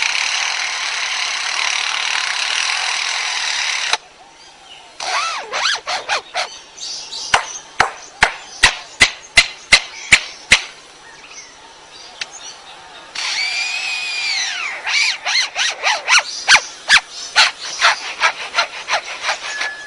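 Lyrebird mimicking machine and tool sounds: a steady rasp like a saw for about four seconds, then a run of sharp clicks at two to three a second. Partway through comes a wavering whine, followed by more rapid clicks.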